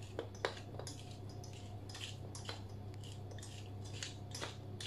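Wooden pepper mill twisted by hand, grinding peppercorns in a run of short, irregular crackles, over a steady low hum.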